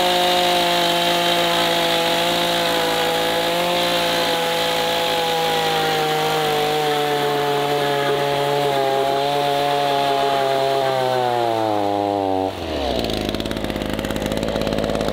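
Two-stroke petrol chainsaw running at high revs while cutting through a row of paper rolls. Its pitch slowly sinks over the cut, then the steady note breaks off abruptly near the end, leaving a lower, rougher sound.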